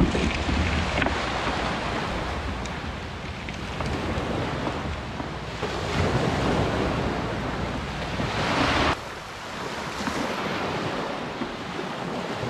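Small waves breaking and washing up a pebble beach, with wind buffeting the microphone. The surf swells louder around six and again around eight and a half seconds, and the low wind rumble drops away suddenly at about nine seconds.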